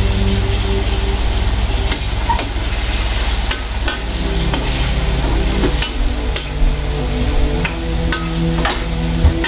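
Duck pieces sizzling in a hot wok while a spatula stirs them, scraping and knocking against the wok in irregular clacks from about two seconds in.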